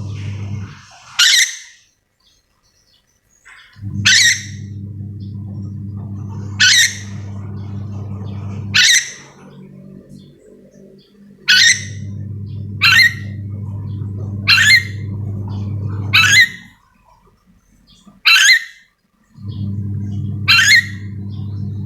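Nuri dora, a parrot endemic to Sulawesi, giving a series of short, sharp, shrill screeching calls, about a dozen spaced one to two seconds apart. Under them a steady low hum cuts out and comes back a few times.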